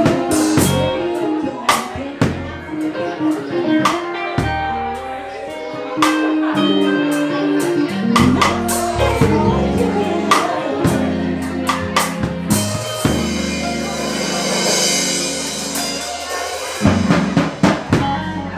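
Live band playing an instrumental passage: drum kit with sharp snare and rim hits over a stepping bass line. A sustained cymbal wash comes in about two-thirds of the way through.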